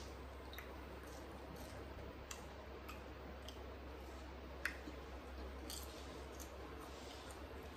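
Faint chewing and crunching of crisp fried snacks and chips, heard as scattered small crisp clicks, one sharper crunch a little past halfway.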